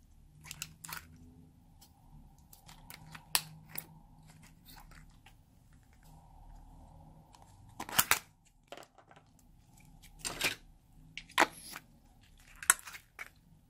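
Store-bought slime being pried and scooped out of a plastic multi-compartment tub by hand, giving scattered sharp clicks and crackles of plastic and slime. The loudest cluster comes about eight seconds in, with several more from about ten seconds in to near the end.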